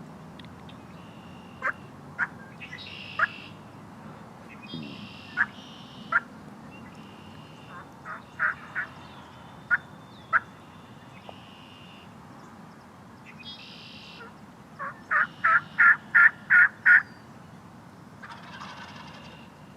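Spring woods with a turkey calling: scattered single sharp notes, then near the end a run of about seven loud yelps, about three a second. Songbirds chirp higher in the background.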